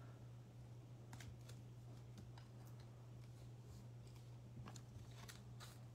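Faint rustles and light clicks from football trading cards being handled, a few scattered times, over a steady low hum.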